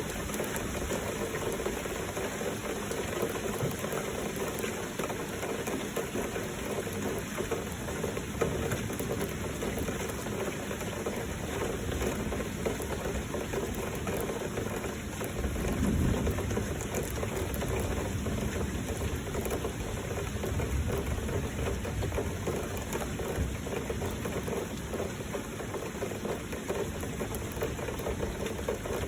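Heavy rain falling steadily, with a low rumble swelling up about halfway through.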